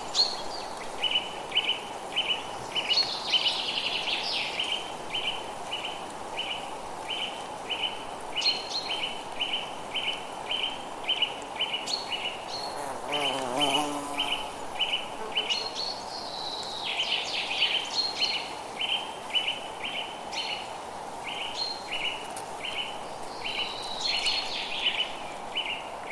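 Forest ambience: a steady chirp repeating about twice a second, with birds calling over it now and then and a soft hiss of background noise beneath. A brief lower, warbling call sounds about halfway through.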